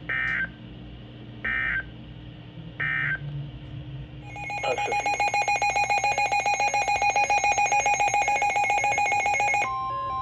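Three short bursts of EAS/SAME digital data tones, the end-of-message signal that closes a warning broadcast. About four seconds in, a rapidly pulsing electronic alert tone starts and runs for about five seconds. Near the end it switches to a steady alert tone with shorter beeps over it.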